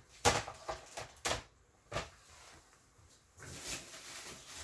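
Handling noises of graded comic slabs being moved and set down: a few sharp plastic knocks and clicks, then a steady rustling from about three and a half seconds in.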